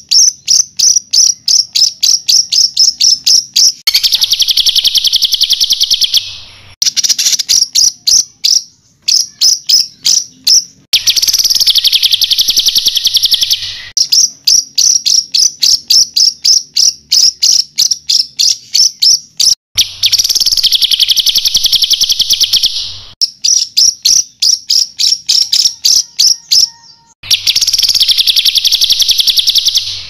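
Songbird tutoring song: rapid series of sharp, high repeated notes, about four or five a second, broken every few seconds by a dense buzzy trill lasting two to three seconds. These are the rapid-fire 'tembakan' notes and rolls played to train cage songbirds.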